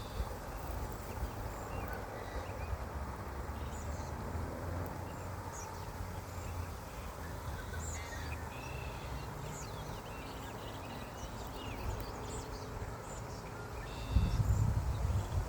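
Strong wind rumbling on the microphone, with small birds giving short high chirps and whistles throughout. A stronger gust near the end.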